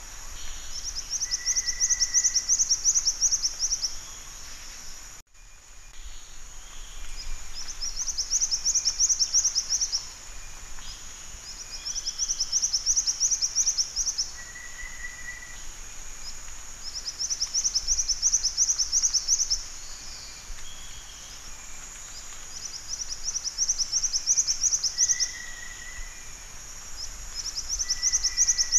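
Black-winged flycatcher-shrike song: high, rapid ticking trills of about two seconds each, repeated every few seconds, with short lower single notes in between. A steady high hiss runs behind, and there is a brief dropout about five seconds in.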